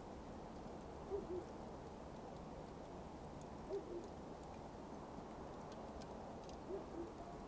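A bird's two-note hoot, given three times about two and a half to three seconds apart, over a steady low hiss and a few faint crackles from the burning coals.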